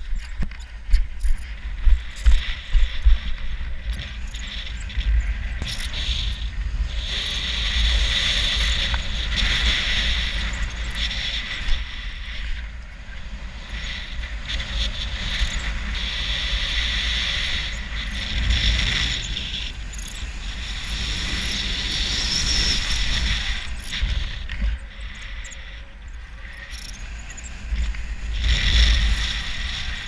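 Strong wind buffeting the camera microphone while flying a small paraglider: a deep rumble with a rushing hiss that swells and fades in gusts every few seconds, and sharp bumps in the first few seconds.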